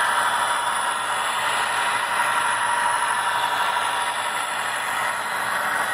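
Model train running: the steady rolling rattle and hum of a string of model Southern Railway Silversides freight cars, metal wheels on model track, with the locomotive motors.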